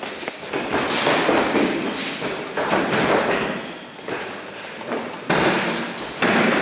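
Judoka grappling on a tatami: bodies thudding onto the mat, with the rustle and scuffle of heavy judogi cloth and bare feet in noisy stretches.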